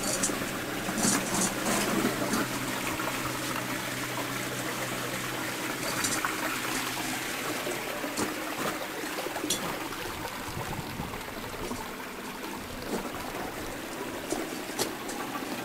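Glacier meltwater trickling and running steadily over the ice.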